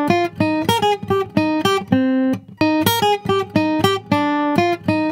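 Background music of quickly plucked guitar notes, about four a second.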